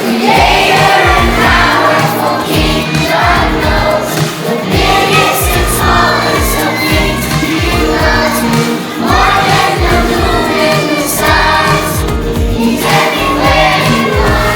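Music: a group singing a song together over a backing track with a steady bass beat.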